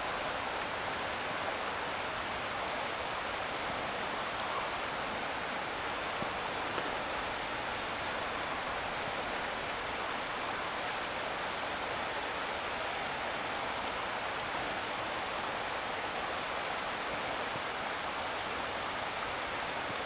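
Steady, even rushing background noise with no change in level, with a few faint short high chirps scattered through it.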